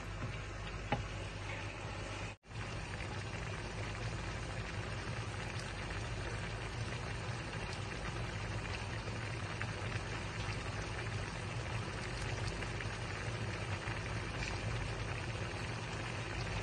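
Sliced pork and onions sizzling as they fry in a pan: a steady crackling sizzle that cuts out for an instant about two seconds in.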